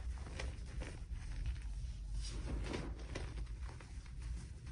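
Hands squeezing and pressing a mound of cornstarch and crumbled gym chalk, giving a soft, irregular crunching in quick clusters, with a steady low hum underneath.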